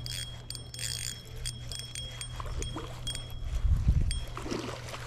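Spinning reel cranked in short spurts, a metallic whirring tick, over a steady low hum. About four seconds in comes a dull low thump and rush as a bass hits the lure and bends the rod.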